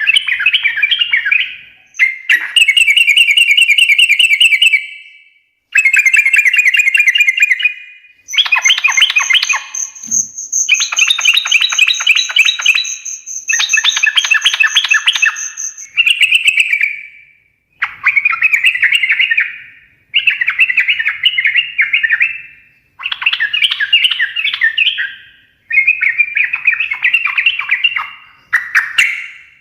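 Yellow-vented bulbul (trucukan) singing in fast chattering phrases, each a bubbling run of rapid notes two to three seconds long with short breaks between, about a dozen in a row. A thin high whistle is held for several seconds in the middle.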